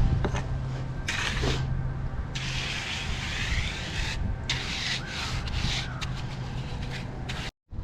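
Scraping and rubbing on masonry, in uneven strokes over a steady low hum, with a brief dropout near the end.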